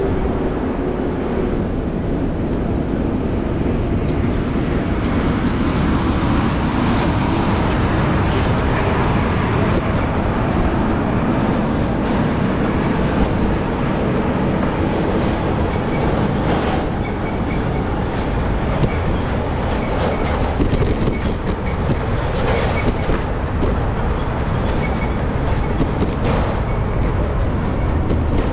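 Steady rumble of a bicycle ride through city traffic: tyre, wind and traffic noise, broken by a few sharp knocks and rattles.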